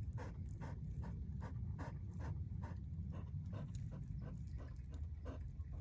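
A dog panting steadily, about three breaths a second.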